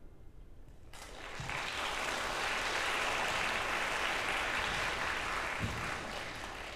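Audience applauding. The applause starts about a second in, holds steady, and fades near the end.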